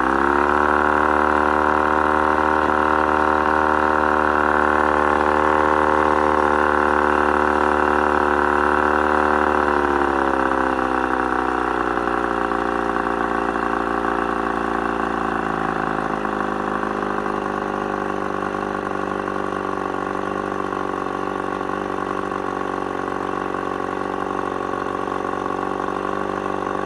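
Mercury 35 hp two-stroke outboard motor running at raised throttle, held steady, then throttled back about ten seconds in and settling to a lower speed. The owner reports a random mid-throttle misfire that almost cuts the motor off.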